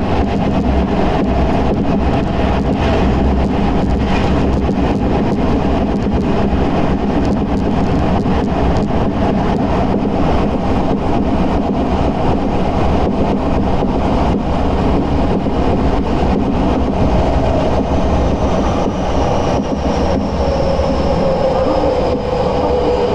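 Tokyo Metro 10000 series subway train running through a tunnel, heard from inside the car: loud, steady wheel and running noise. From about two-thirds of the way in, the traction motors' whine slides steadily down in pitch as the train slows.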